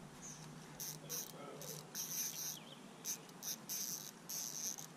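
Insects chirping in short, irregular high-pitched bursts.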